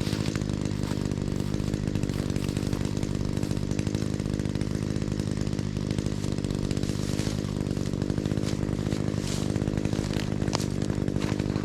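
An engine running steadily at a constant speed, without revving.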